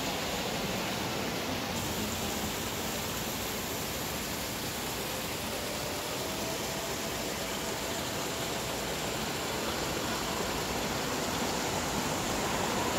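Steady, unbroken hiss of falling rain.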